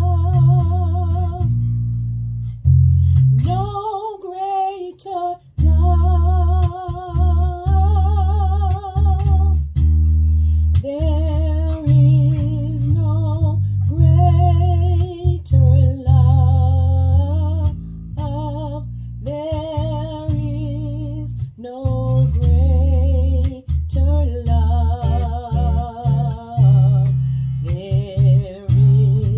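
A woman singing long phrases with wide vibrato over an electric bass guitar playing sustained low notes, in a slow gospel song.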